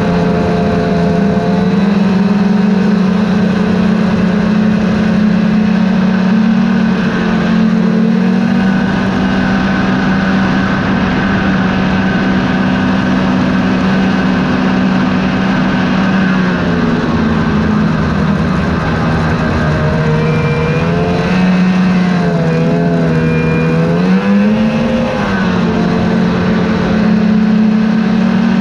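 Snowmobile engine running steadily at cruising speed. About three-quarters of the way through, the engine pitch dips and rises a few times.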